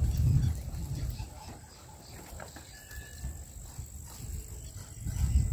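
Gray langurs close by making low, guttural grunts, loudest in the first second and again near the end, with a quieter stretch between.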